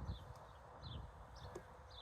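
Pileated woodpecker pecking into wood: irregular, dull, hollow knocks. Short, high, falling chirps repeat about twice a second over them.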